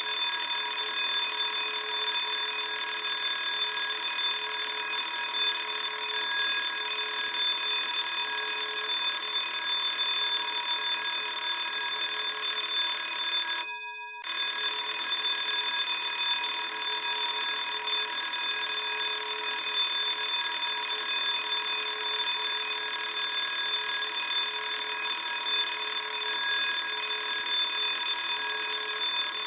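Classic school bell ringing continuously, a steady loud metallic ring. It cuts out for a moment about halfway through, then starts again.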